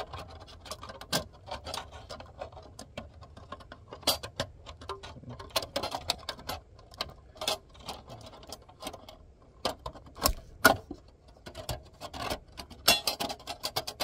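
Irregular metallic clicks and taps as a lint screen is pressed back into the opening of a sheet-metal roof dryer vent hood, where it is held by compression.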